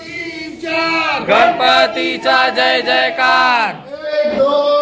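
Several people chanting loudly together in a rhythmic devotional cheer, with a short break about four seconds in.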